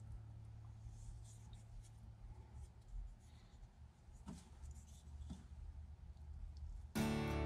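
Soft scratchy strokes of a small paintbrush spreading contact cement along the edge of a foil-faced sound deadening mat, over a low steady hum. Acoustic guitar music comes in abruptly near the end.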